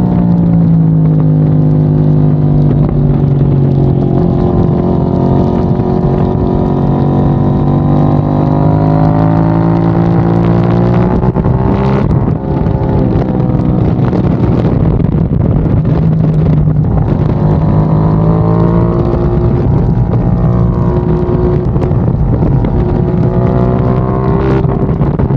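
KTM 890 Duke R's parallel-twin engine running hard at track speed, its pitch drifting down and rising again several times, with a brief dip about halfway through.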